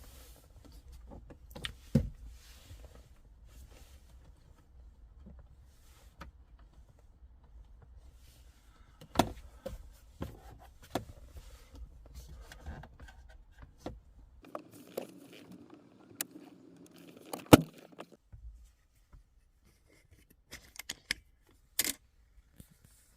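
Scattered clicks, taps and light rattles from things being handled inside a car, with a few sharper knocks about 2, 9 and 17.5 seconds in.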